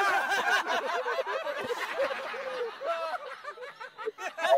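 Men chuckling with low, overlapping chatter.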